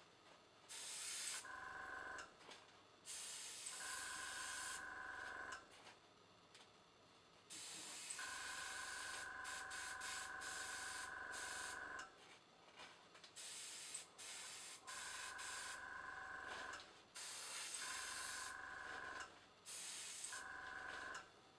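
Dual-action airbrush hissing in repeated bursts of one to four seconds as its trigger is pressed and released, spraying black acrylic paint. With each burst a small tankless compressor's motor runs with a steady hum and whine, stopping between bursts.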